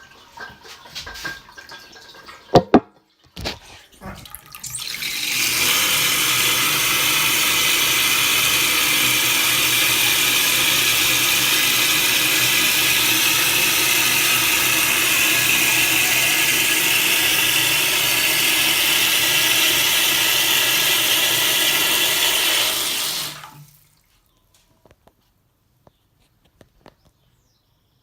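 A few small clicks and knocks, then water rushing steadily through an Armitage Shanks Sandringham close-coupled toilet for about eighteen seconds before cutting off abruptly.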